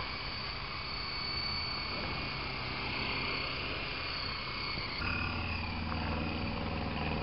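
Hughes 500-style R/C helicopter running with a steady high whine. About five seconds in the sound switches abruptly to a louder, lower running note.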